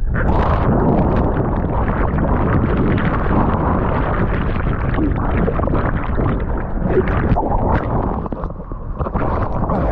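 Churning seawater heard underwater through a camera's waterproof housing: a loud, muffled rumble and sloshing of turbulent water in the surf, with splashing as the camera comes back up to the surface near the end.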